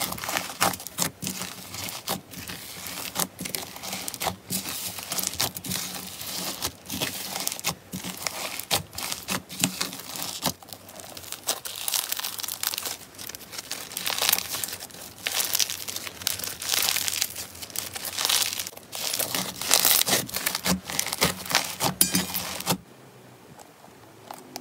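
Foam-bead slime squeezed and kneaded by hand: dense, crunchy crackling and crinkling as the foam beads are pressed and squished. The crackling stops suddenly near the end.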